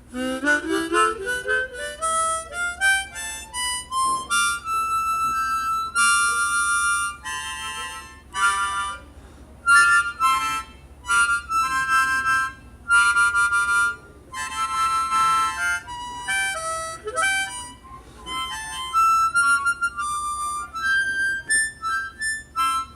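Hohner Big River harmonica in circular tuning being played: a quick rising run of single notes in the first few seconds, then chords and single melody notes. Its four-draw reed is a hand-riveted replacement from a Hohner Blues Band that did not sit flat, and is a little weaker than the harp's phosphor bronze reeds.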